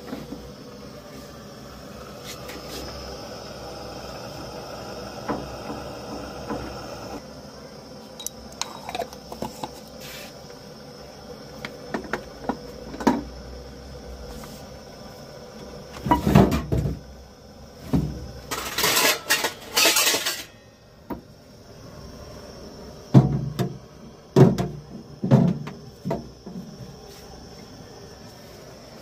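Kitchen handling sounds: scattered clinks, knocks and scrapes of metal pots and utensils, busiest in two clusters a little past halfway and a few seconds later.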